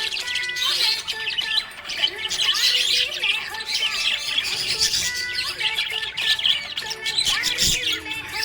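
Pet budgerigars chirping continuously, a dense stream of quick high chirps and short squawks.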